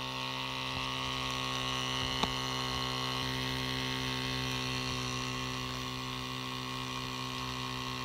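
KaCio Mini 0.5 cc two-cylinder model steam engine running steadily at speed on steam from a small brass boiler: an even hum with a hiss of steam above it. A single sharp click about two seconds in.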